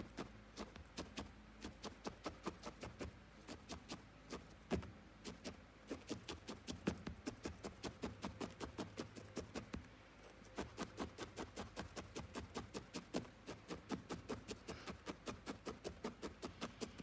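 Felting needle stabbing repeatedly into wool on a felting pad, a fast even run of faint clicks at about five a second, with a short pause about ten seconds in. This is dry needle felting, the wool being packed down to build up the sides of the head.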